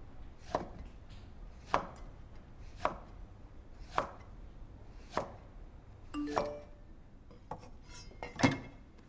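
Sharp knocks at a steady pace, a little over a second apart, then a short ringing clink and a louder final knock near the end.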